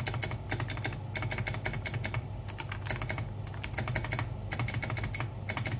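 Fast typing on a Machenike K600 custom mechanical keyboard: quick runs of key clicks broken by short pauses about once a second.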